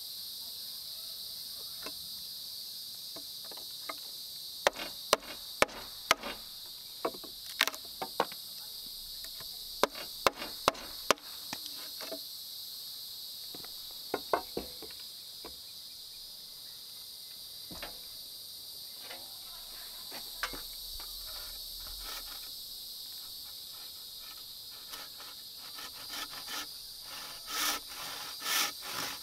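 A steady high drone of insects, over which a hand tool strikes wood in quick groups of sharp knocks, from about five to eleven seconds in and again around fourteen seconds. Scraping, rasping sounds on the wood come near the end.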